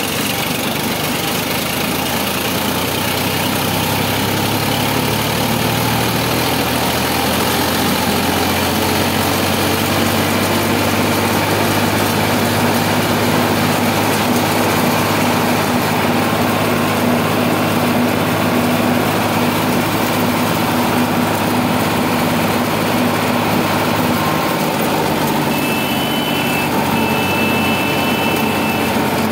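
Sonalika DI 745 tractor's three-cylinder diesel engine running while driving, heard close from the driver's seat. Its pitch rises over the first few seconds and then holds steady. A short high tone sounds twice near the end.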